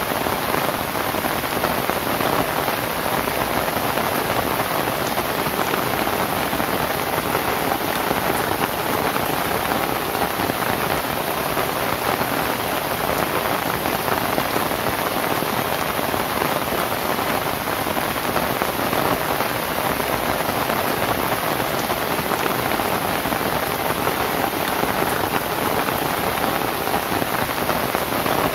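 Steady rain falling on a thatched roof of dried lontar palm leaves: an even hiss of countless drops that never lets up.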